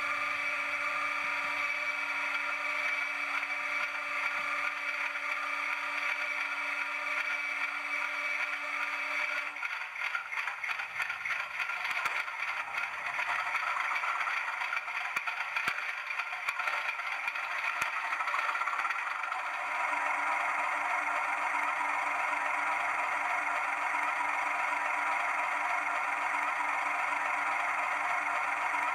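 Hornby TTS sound decoder in a Class 31 model locomotive, playing a diesel engine's sound through its small speaker. A steady engine hum gives way about ten seconds in to several seconds of clattering, and the steady running returns near the twenty-second mark.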